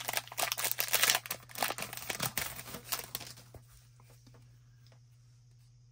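A hockey card pack wrapper crinkling and tearing as it is opened, a dense crackle for about the first three seconds, then only a few faint clicks.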